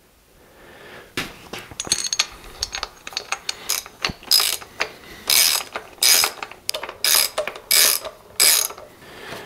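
Hand socket ratchet tightening a bolt: a few light clicks and clinks of parts being handled, then from about four seconds in a regular run of about eight ratcheting strokes, each a short burst of pawl clicks, roughly one every two-thirds of a second.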